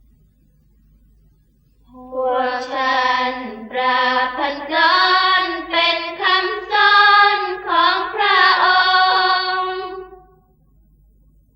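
Thai Isan sarapanya chanting: one long sung phrase of drawn-out, melismatic vocal lines. It starts about two seconds in and stops shortly before the end.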